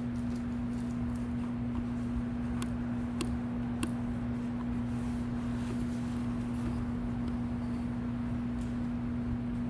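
A steady low electrical-sounding hum, with three faint clicks between about two and a half and four seconds in.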